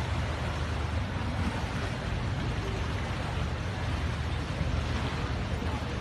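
Steady low rumble of a harbour ferry's engine as it comes in to the pier, under a constant hiss of wind and water.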